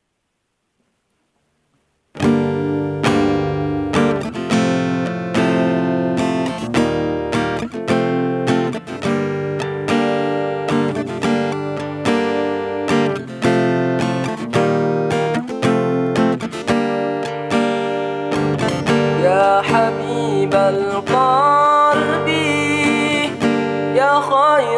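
GWC 235 NA acoustic guitar starts about two seconds in and plays a strummed and picked intro to a sholawat. A singing voice comes in over the guitar in the last few seconds.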